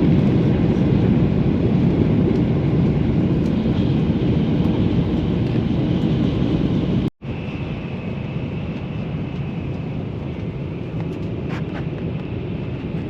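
Steady rumble of a Shinkansen bullet train running at speed, heard from inside the passenger cabin. About seven seconds in it cuts out for an instant and comes back a little quieter, with a faint high whine over it.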